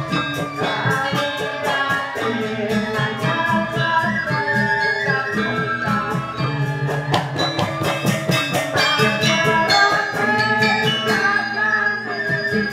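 Balinese gamelan playing: struck bronze metallophones ringing in a fast, steady pulse of about four to five strokes a second, with a low sustained note under them at the start and near the end.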